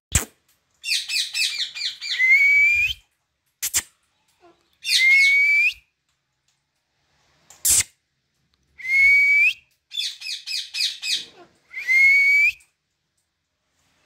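Ring-necked parakeet calling several times over in high, shrill phrases: quick runs of sharp chattering notes and longer whistles that rise and then level off. A few sharp clicks fall between the calls.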